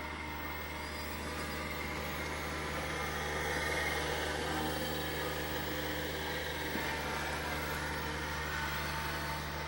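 A motor vehicle running over a steady low engine hum, its sound swelling to a peak about four seconds in and easing off slowly as it passes.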